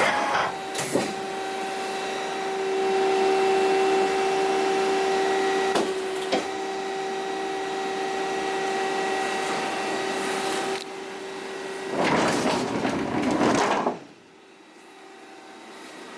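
Johnford SL-300 CNC turning center running with a steady mechanical whine and a few light clicks. About twelve seconds in comes a two-second noisy rush that cuts off sharply, leaving a quieter steady hum.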